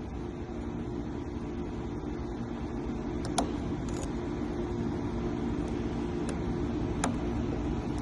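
Steady mechanical hum with several fixed tones, with a few light, sharp clicks from about three seconds in.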